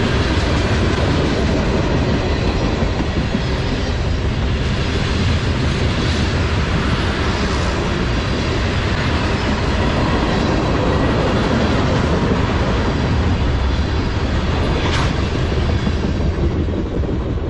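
Freight train cars rolling past close by: tank cars and then double-stack container well cars. Steel wheels on rail make a steady, loud rumble and rattle, with a single sharp click about fifteen seconds in.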